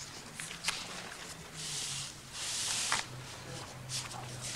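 Paper rustling as pages of a document are handled close to a microphone: a few soft clicks and two short rustles over a faint steady low hum.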